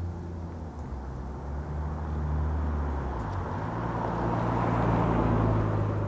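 Nissan Skyline's turbocharged RB20DET straight-six, through a Kakimoto Regu exhaust with no mid pipe, driving past. The exhaust and road noise grow louder to a peak about five seconds in, then begin to fade over a steady low engine drone.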